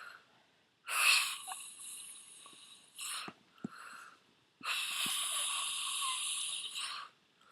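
A sleeping man snoring: two long, wheezy, hissing breaths of two to three seconds each, with short puffs of breath and quiet gaps between them.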